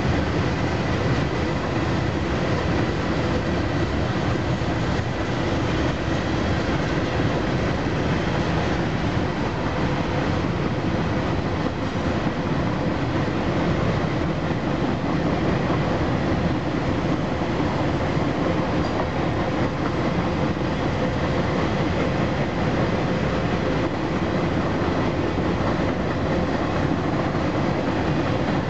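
Freight train cars rolling past: a steady rumble and rattle of steel wheels on rail, with a faint steady ringing tone underneath.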